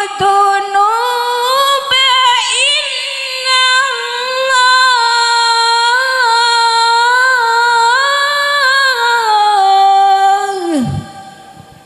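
A woman reciting the Qur'an in a melodic, sung style. Her voice holds long, drawn-out phrases that waver and glide between notes, then falls in pitch and stops about eleven seconds in.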